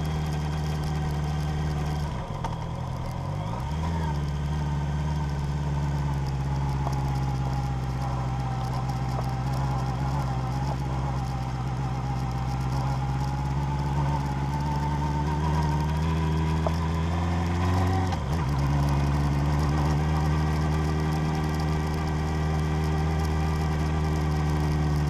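Vehicle engine running steadily while driving off-road. Its revs drop and pick up again twice, about two seconds in and again near the three-quarter mark.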